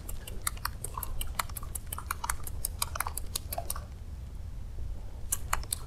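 Daisen Shotokan baitcasting reel ticking in quick, irregular clicks as line is wound in while a stick lure is twitched across the surface. The clicking pauses nearly four seconds in and picks up again near the end.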